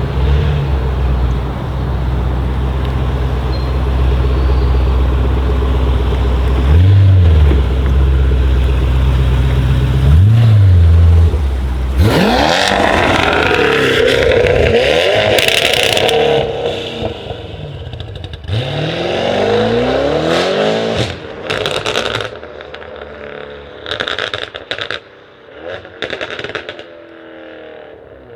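Tuned Audi RS7 C8's twin-turbo 4.0-litre V8 idling, blipped twice, then accelerating hard with its revs climbing and falling several times. It fades as it moves off, with sharp crackles and pops from the exhaust on the overrun near the end.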